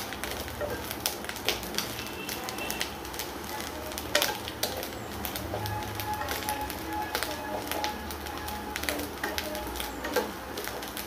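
Grated coconut roasting in coconut oil in a nonstick pan, stirred steadily with a wooden spatula: irregular scrapes and taps of the spatula on the pan over a light sizzle and crackle. The coconut is being fried slowly on a low flame until golden, as for erissery.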